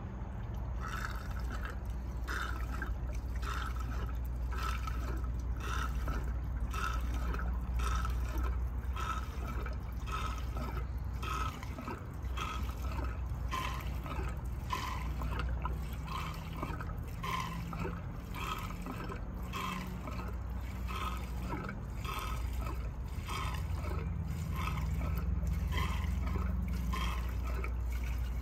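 Gasoline pouring from a red plastic gas can's spout into a plastic lawnmower fuel tank. It runs as a steady trickle broken by a regular glug about twice a second as air works back into the can, over a steady low hum.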